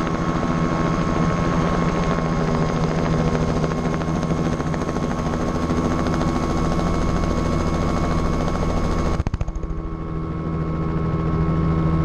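Robinson R66 helicopter lifting off and climbing: the rapid beat of the two-bladed main rotor over the steady whine of its turboshaft engine, heard close by from the tail boom. About nine seconds in, the sound briefly dips and loses its highest part.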